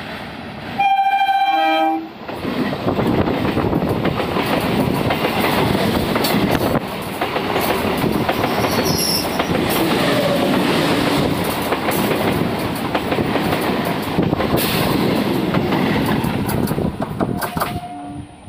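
Electric multiple unit (EMU) local train sounding a loud horn blast for about a second. It then runs close past across a small steel truss rail bridge with a steady, dense noise of wheels on rails and coaches rattling by. A second short horn blast comes near the end.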